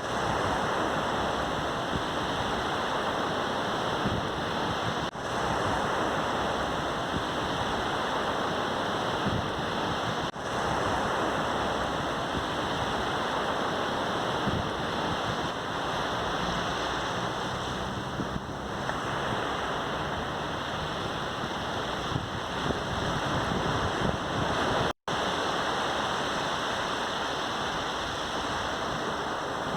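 Sea surf washing onto a beach, a steady rushing wash of waves recorded on a phone. The sound cuts out for an instant about three-quarters of the way through.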